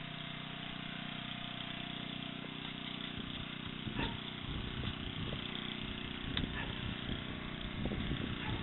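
An engine running steadily at idle, an even low hum, with a few faint knocks over it.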